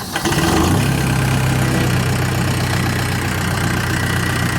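Husqvarna walk-behind concrete saw's engine running with a steady hum, coming up in level just after the start.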